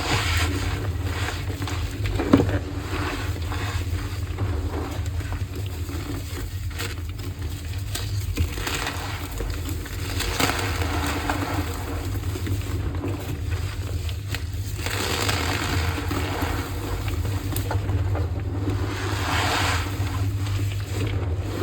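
Gym chalk being crushed and squeezed by hand, crunching in irregular bursts over a steady low hum.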